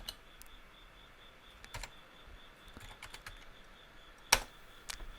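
A few scattered clicks at a computer, faint, with the loudest a little past four seconds in, over a faint steady high-pitched hum.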